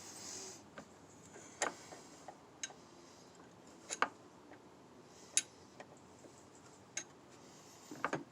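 Sparse light metallic clicks and taps, about one every second or so, with a small cluster near the end, from a wrench working on the brake line fittings of a master cylinder.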